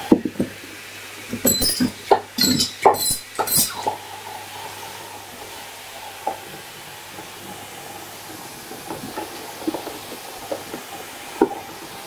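Canister vacuum cleaner running with a steady rush of air, while hard plastic Lego bricks clatter in a quick run of sharp clicks in the first few seconds as they are sucked up the metal wand. A few scattered clicks follow later, the last shortly before the end.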